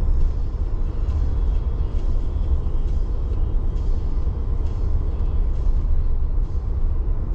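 Steady low rumble of road and tyre noise inside a moving Tesla electric car's cabin, with no engine sound.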